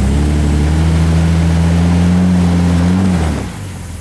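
Jeep engine held at raised revs while the Jeep crawls up a rock ledge. It runs steady for about three seconds, then the revs drop off near the end.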